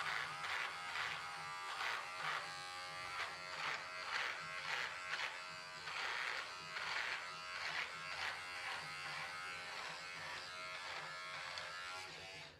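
Handheld electric shaver buzzing as it is run in repeated strokes through a thick, long-grown beard, swelling and easing about twice a second. It switches off near the end.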